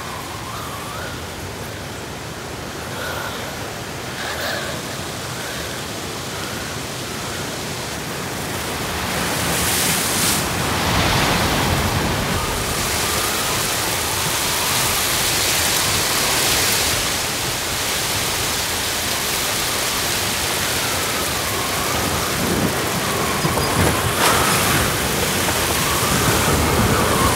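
Hurricane wind with heavy rain: a dense, steady rush of noise that swells in gusts and grows louder about a third of the way in, with faint wavering whistling tones.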